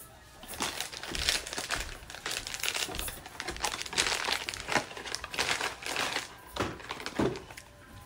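Irregular close-up crinkling and clicking as a hard lollipop is sucked and handled, with faint music underneath.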